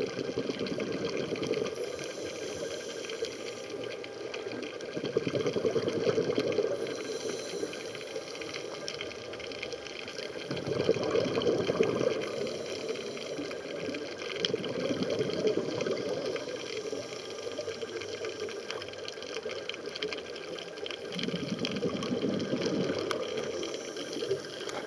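Scuba diver's breathing underwater, heard through a camera housing: a steady rushing hiss with louder bubbling surges from exhaled regulator bubbles every few seconds, each lasting about two seconds.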